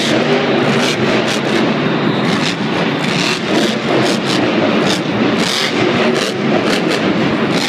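Grave Digger monster truck's supercharged V8 engine running loud and hard through a freestyle run with jumps.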